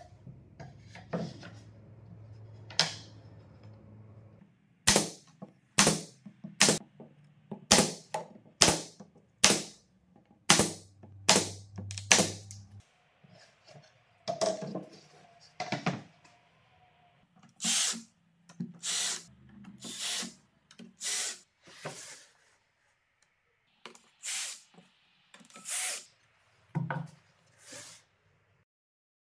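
A run of about nine sharp, loud snaps roughly once a second over a low steady hum. Then a string of short bursts about a second apart from a cordless drill/driver sinking screws into a plywood jig.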